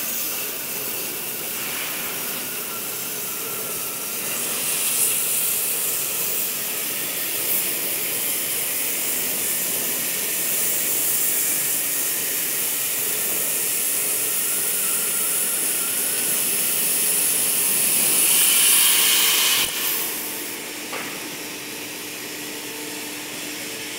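Oxy-fuel cutting torches on a CNC gantry flame-cutting machine hissing steadily as they cut through steel plate. About twenty seconds in the hiss drops off sharply, leaving a fainter hiss and a low steady hum.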